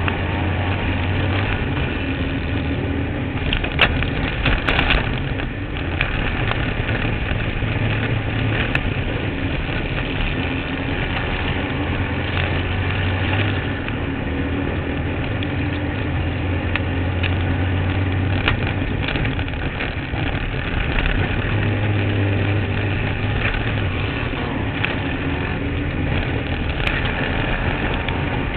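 Kart cross buggy's engine running hard on a dirt race track, heard onboard, continuous and loud with its note changing repeatedly. A few sharp knocks come about four to five seconds in.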